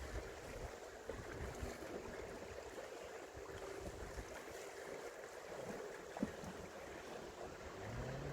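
Faint sea water lapping and light wind, with a faint steady hum underneath and a single sharp click about six seconds in.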